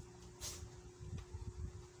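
Close-up eating sounds: chewing, with soft irregular low bumps, and a short sharp smack about half a second in, over a steady faint hum.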